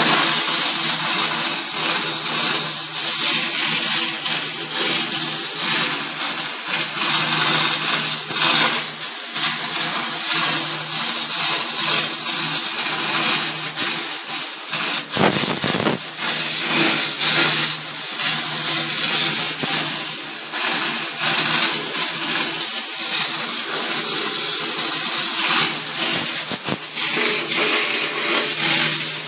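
Kärcher DE 4002 steam cleaner jetting steam onto a washbasin drain with a steady, loud hiss.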